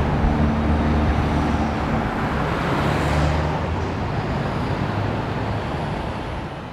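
Street traffic noise with a vehicle engine running low and steady, fading out near the end.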